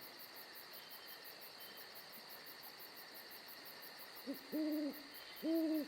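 An owl hooting three times near the end, a short hoot followed by two longer, level hoots, over a faint steady hiss.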